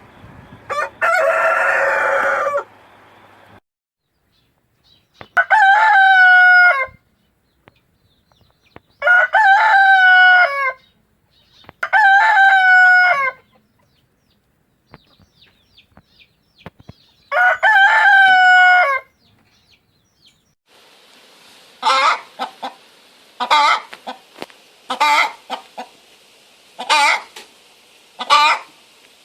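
Chickens calling in a run of separate recordings: a loud call about a second in, then a rooster crowing four times, each crow about a second and a half long. Near the end a hen clucks in short calls repeated every second or so over a steady hiss.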